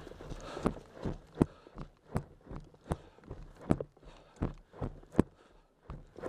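Footsteps on dry ground, a steady walking pace of about one step every three-quarters of a second.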